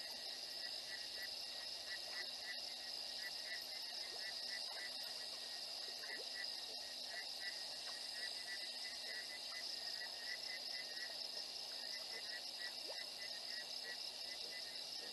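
Night insect chorus: a steady high-pitched buzz with a repeated chirping, a few chirps a second, that pauses briefly midway.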